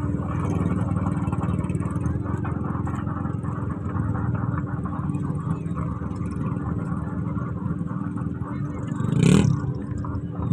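Vehicle engines running steadily amid a crowd, with one short loud burst about nine seconds in.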